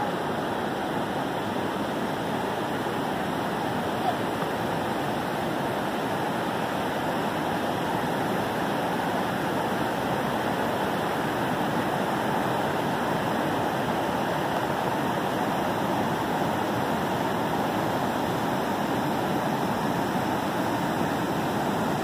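Whitewater rushing steadily as a river pours over rock ledges and through a narrow rock gorge in a waterfall.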